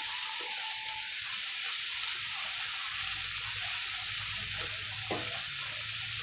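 Mutton pieces sizzling steadily as they fry in hot mustard oil in a kadai, with a wooden spatula stirring them.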